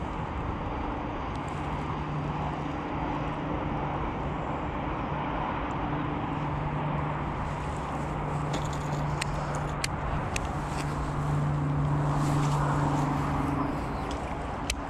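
Steady outdoor background of wind noise and a distant engine hum that comes and goes, with a few sharp light clicks about two thirds of the way through and one more near the end.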